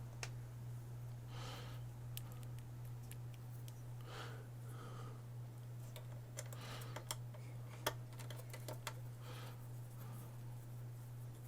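Scattered small clicks and taps of parts being handled and fitted during reassembly of an Xbox One S console, the sharpest about eight seconds in. Soft hissy swells come at an even pace about every two and a half seconds over a steady low hum.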